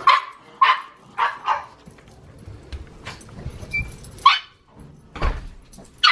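A pug barking and yipping in a string of short, high-pitched calls, with a dull thump about five seconds in.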